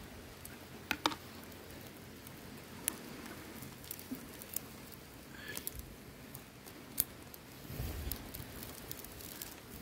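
Small wood fire crackling, with scattered sharp pops over a faint steady hiss as fish roast on bamboo skewers over it; a soft low rumble comes in near the end.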